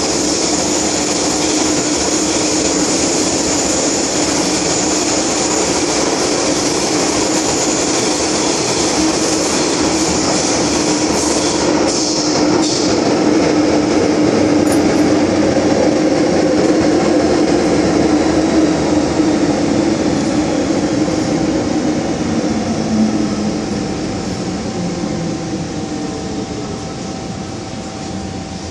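Hong Kong MTR Island Line M-Train running in the tunnel, heard from inside the car: a steady loud rumble of wheels and running gear with a humming note, and a couple of sharp clicks near the middle. In the last third it grows quieter and a falling whine sets in as the train slows.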